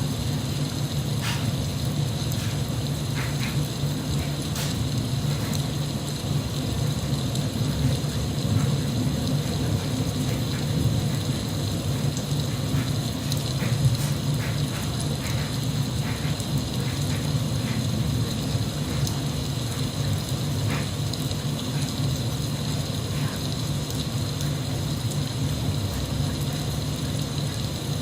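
Steady rain with a low rumble, and scattered drops ticking now and then.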